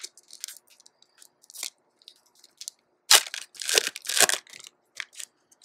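A foil trading-card pack wrapper being torn open and crinkled by hand: faint scattered crackles at first, then a loud run of tearing and crinkling about three seconds in, tapering to a few small crackles.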